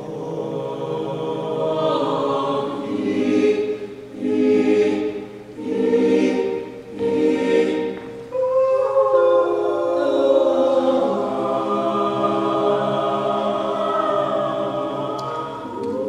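All-male a cappella group singing in close harmony: short chords repeated every second or so for the first half, then held chords from about eight seconds in.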